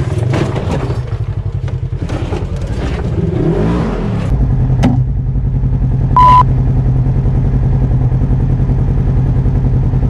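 Polaris RZR 1000 side-by-side's engine running steadily, heard from inside the cab, with clattering and scraping of the vehicle over the first four seconds. A sharp click comes near five seconds, and a short loud high beep about six seconds in.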